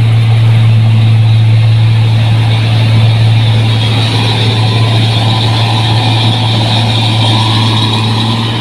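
New Holland 1545 combine harvester running steadily, a loud constant low engine drone with machinery noise over it.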